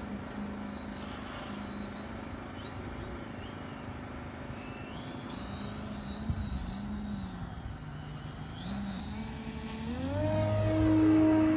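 Radio-controlled Extreme Flight 85-inch MXS aerobatic plane flying on its StinGRX 85 motor and three-blade 24x10 propeller, the propeller's hum rising and falling in pitch as the throttle changes. About ten seconds in, the pitch climbs steeply and the sound swells loud as the plane hangs nose-up in a hover close by.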